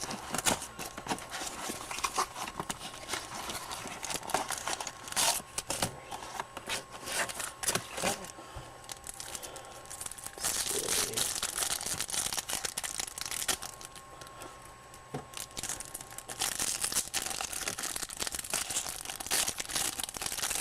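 Wrapping of a trading-card hanger box crinkling and tearing as it is opened, a dense run of crackles that thins out for a few seconds in the middle.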